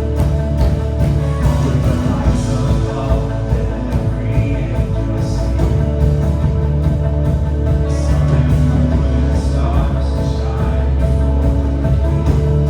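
Live worship band playing a rock-style song with full band and a steady drum beat.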